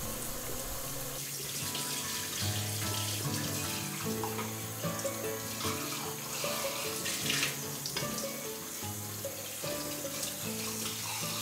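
Kitchen tap running in a steady stream over a metal moka pot's parts as they are rinsed by hand in a steel sink. Soft instrumental music plays underneath.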